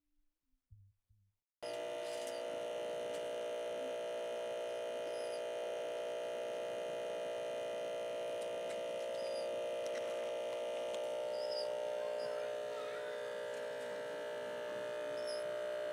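A steady electrical hum made of several held tones, starting abruptly about a second and a half in after near silence, with a few faint short high chirps over it.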